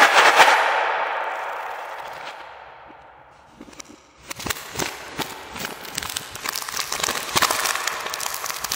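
A sudden clatter of small hard candies that fades away over about three seconds, then a plastic candy bag crinkling and crackling as it is handled, with many sharp crackles.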